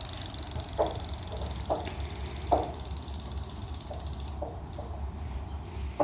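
A motor making repeated clicks, roughly one a second, over a low hum. A steady high hiss stops about four and a half seconds in, while the clicks carry on.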